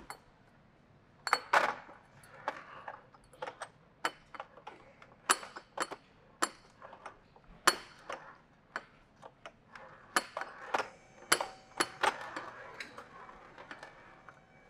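Small metal shock-absorber parts clinking and rattling in a metal tray as it is carried: sharp, irregular clinks, about one or two a second.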